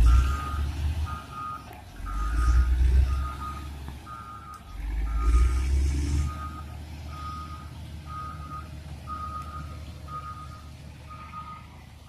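Caterpillar 120K2 motor grader's reversing alarm beeping in an even rhythm, a little over one beep a second, as the machine backs up. Under it the grader's diesel engine rumbles, revving up in three loud surges in the first six seconds and then settling.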